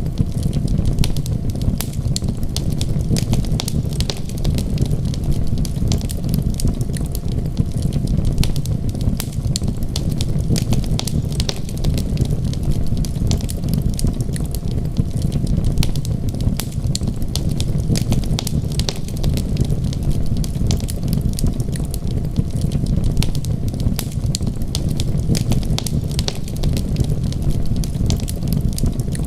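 Wood fire crackling with many small sharp pops and snaps, over a steady low rumble.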